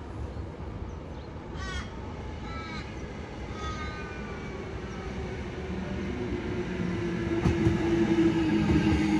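Sydney Trains Waratah electric train approaching, its running noise and a steady low hum growing steadily louder through the second half as it draws near. A few short falling bird chirps come in the first half.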